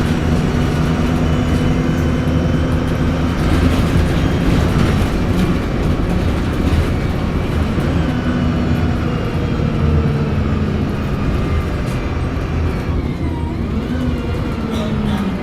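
Diesel engine of a Euro 4 VDL SB200 single-deck bus under way, with its turbocharger whining over the engine's drone. The whine shifts in pitch with the engine and climbs near the end.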